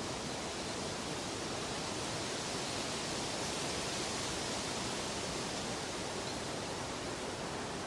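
Steady, even rushing noise with no separate events, swelling slightly around the middle, like continuously running water.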